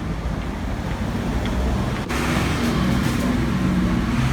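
Steady low rumble of vehicles, getting somewhat louder about two seconds in.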